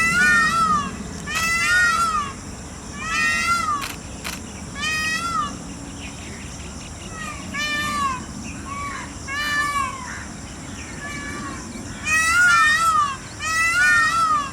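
Peafowl calling again and again: loud calls that rise and fall in pitch, each under a second long and coming every second or two, fainter and more spaced out for a few seconds in the middle.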